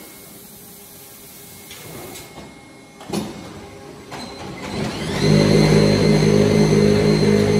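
Low hum of brick-making machinery, with a single metallic clank about three seconds in. About five seconds in, loud background music with a held low chord comes in after a rising tone.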